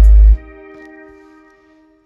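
Car subwoofer playing bass-heavy music at very high volume, the deep bass cutting off about a third of a second in. A held chord then fades out over about a second and a half.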